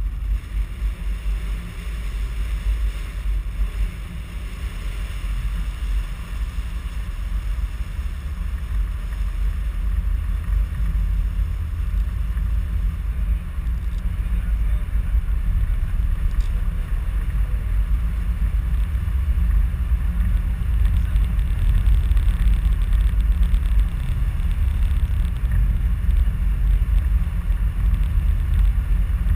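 Wind buffeting the microphone on a moving cable car, heard as a steady low rumble that grows slowly louder.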